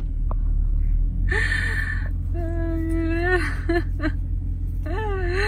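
A woman's wordless, drawn-out vocal sounds: a short one, then a long held 'ooh', then a sliding one near the end. Under them runs the steady low rumble of a car idling in stopped traffic.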